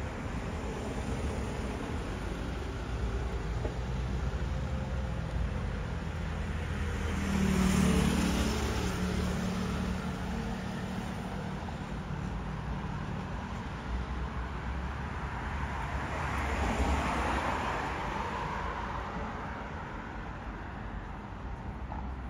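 Road traffic: steady traffic noise with a vehicle passing close by about a third of the way in, its engine hum rising and fading, and another passing a little past halfway.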